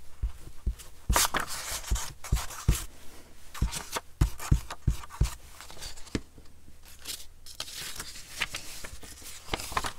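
Sheets of paper and book pages being handled and slid across a cutting mat: rustling and scraping, with a string of light taps and knocks.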